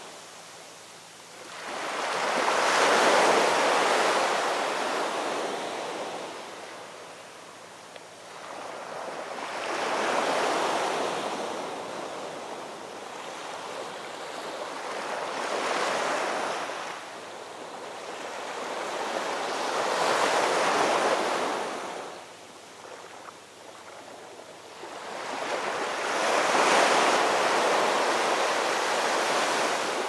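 Heavy storm surf: waves break and wash in, in five surges that each swell and fade over several seconds.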